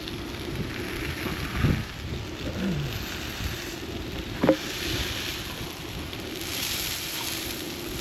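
Walleye cakes sizzling as they fry in a pan, the hiss swelling twice in the second half, with wind rumbling on the microphone and a single clink about halfway through.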